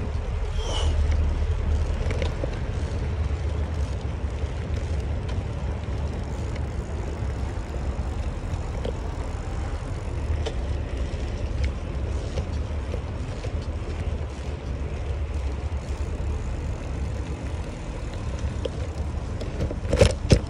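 Steady low rumble of wind on the microphone and tyres rolling on the road while riding a bicycle, with one sharp knock near the end.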